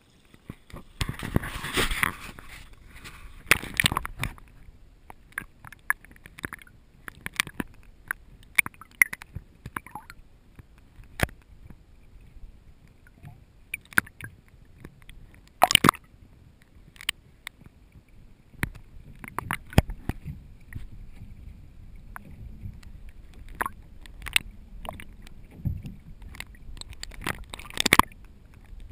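Water sloshing and gurgling around a camera dipped in and out of the water beside a boat hull, heard through the camera's waterproof housing, with irregular sharp clicks and knocks throughout.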